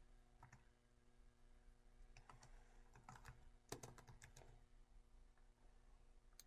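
Faint, scattered keystrokes on a computer keyboard as a short name is typed, over a low steady hum.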